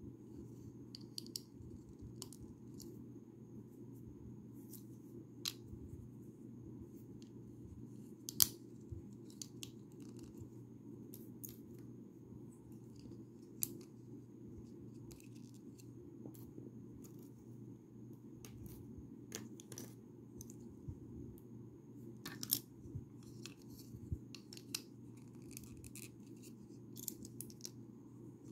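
Lego bricks being handled and pressed together: scattered small plastic clicks and rattles, the sharpest about eight seconds in and again about twenty-two seconds in, over a steady low hum.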